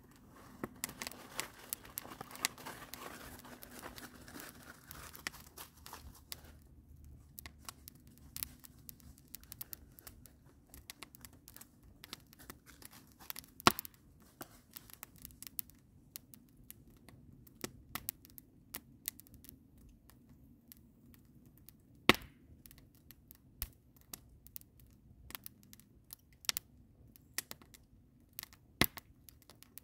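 Wood fire with green evergreen boughs crackling in a steel fire ring: irregular sharp pops and ticks throughout, with two louder snaps, one about halfway through and one about two-thirds in. A soft hiss is heard during the first few seconds.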